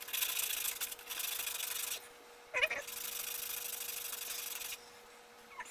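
Hand sanding: sandpaper rubbing on a wooden ukulele part in two spells of about two seconds each, with a short break about halfway.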